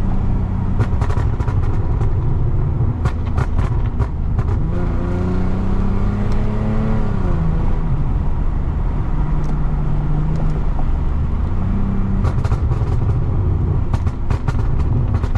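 Lexus IS250's ECU-tuned 2.5-litre V6 driving, its exhaust popping and crackling in sharp bangs off the throttle, the tune's burble. The engine revs up and falls back once midway, with clusters of pops before and after.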